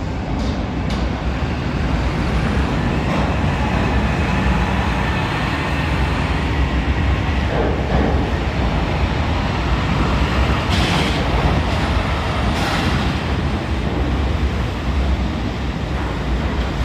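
Diesel truck engine idling steadily, with two short hisses of compressed air about two-thirds of the way through: the truck's air system venting, the 'sneeze'.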